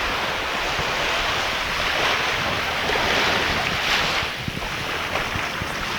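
Steady rush of sea water and wind buffeting the microphone, swelling and easing, with a few short low knocks.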